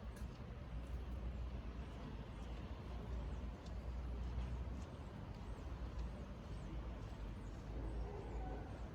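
Steady low outdoor rumble with an even background hiss, with faint high chirps here and there and a few light taps near the start.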